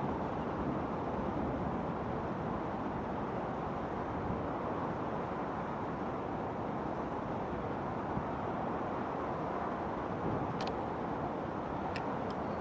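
Steady outdoor background noise with no bangs, and a few faint sharp ticks near the end.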